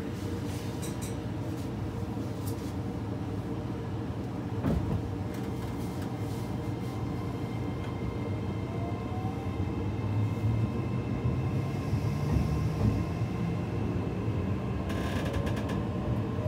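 Meitetsu 3500 series car 3558, a test car for new traction motors, accelerating away from a station: its Toyo Denki IGBT VVVF inverter and traction motors whine, rising in pitch as speed builds, over growing wheel-on-rail rumble. A burst of harsher rail noise comes near the end.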